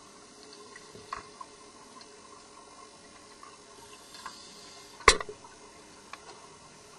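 Underwater sound through a diving camera's housing: a faint steady hiss with scattered small liquid clicks, and one sharp, much louder knock about five seconds in.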